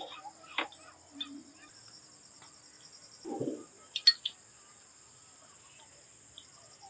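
Crickets chirping steadily in a high, even pulse, with a few sharp clinks of crockery, the loudest about four seconds in.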